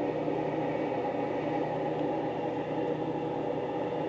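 A steady machine hum with several held tones, unchanging throughout.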